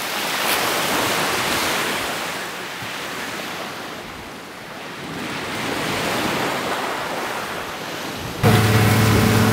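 Small waves washing onto a sandy beach, with wind on the microphone; the wash swells and fades twice. About a second before the end it cuts abruptly to a boat's motor running steadily.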